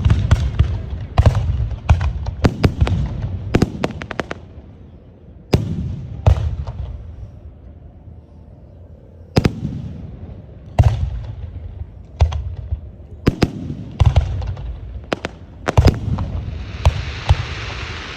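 Aerial fireworks shells bursting in quick, irregular volleys of sharp bangs, each followed by a deep rumbling echo, with a short lull in the middle. A steady hiss sets in near the end.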